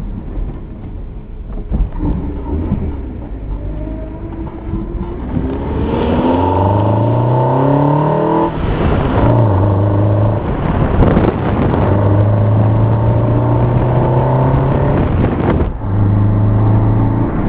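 MG TF engine breathing through a BMC CDA induction kit. The revs are lower and uneven for the first few seconds. About six seconds in they climb steadily for a couple of seconds, break off, then are held steady at higher revs for several seconds at a time, with brief dips.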